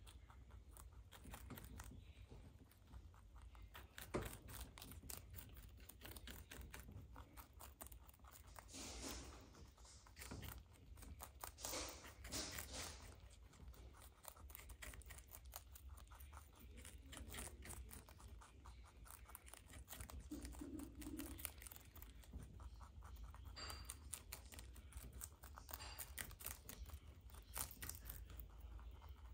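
Two baby rabbits chewing cabbage leaves: faint, rapid crunching clicks of nibbling, with a few louder tearing bites now and then.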